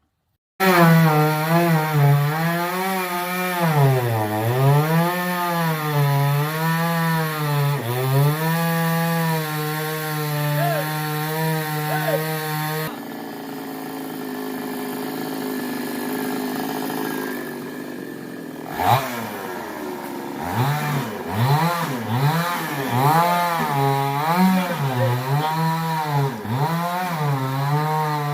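Two-stroke chainsaw cutting wood, its engine speed dipping and recovering as the chain bites and frees. About halfway through it changes to a lower, steadier sound for a few seconds, then cuts again in quick surges.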